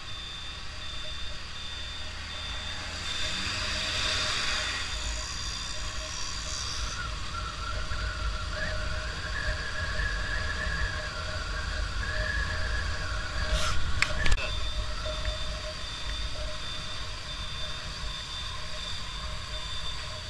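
Motorcycle under way, its engine and the wind on the mount making a steady low rumble with road hiss. About fourteen seconds in come a couple of sharp knocks, the loudest sounds of all.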